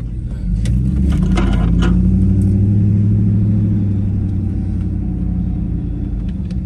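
GMC Yukon's engine pulling steadily as the SUV drives along a rough dirt trail, heard from inside the cab as a loud low drone that swells about half a second in. A few sharp knocks sound in the first two seconds.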